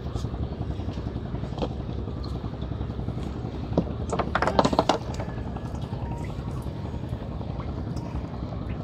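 Steady low engine rumble, with a short spell of louder rustling and scraping about four to five seconds in.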